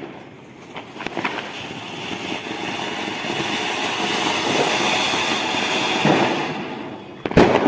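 A firework burning with a steady hiss and crackle for about five seconds, then fading. A single loud firecracker bang comes near the end.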